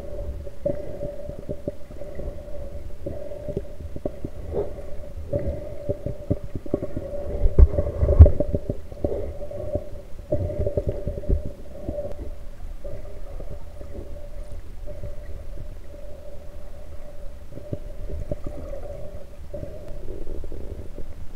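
Muffled sound from an action camera held in the water while snorkeling: a low rumble and a wavering hum that comes and goes, with frequent knocks against the camera housing. A couple of heavier thumps come about eight seconds in.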